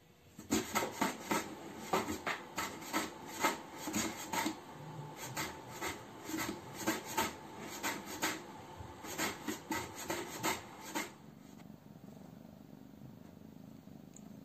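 A kitten clawing and scratching at the inside of a cardboard box: quick rasping strokes, irregular, roughly two to three a second. About eleven seconds in they stop and a quiet steady purr takes over.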